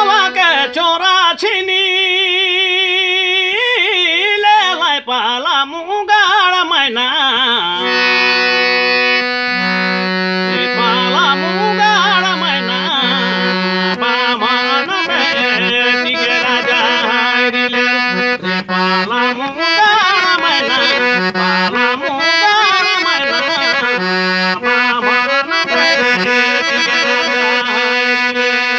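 Folk-song music on a reed keyboard instrument. A wavering, vibrato-laden melodic line runs through the first eight seconds or so, then a melody plays over a held low drone note.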